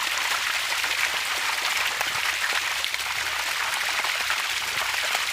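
Food frying in hot oil in a miniature pan: a steady sizzling hiss with many small scattered pops.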